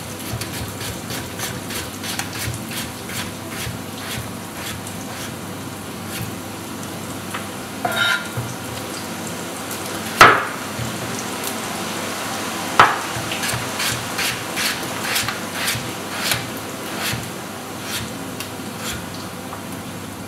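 Kitchen knife slicing a raw potato into rounds on a plastic cutting board: a run of irregular knocks as the blade hits the board, two of them sharper and louder about halfway through. Under it, pork fat and onion sizzle steadily in a frying pan.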